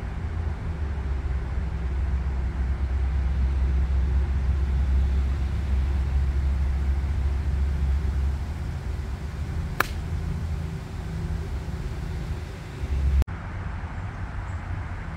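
Low rumble of wind on the microphone, with one sharp click about ten seconds in: a 56° Titleist Vokey wedge striking the golf ball on a full approach shot.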